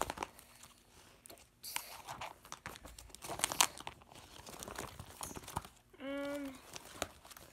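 Clear plastic binder sleeve pages crinkling and rustling as they are flipped and handled, with trading cards sliding against the plastic in irregular bursts. Near the end there is a brief hummed vocal sound.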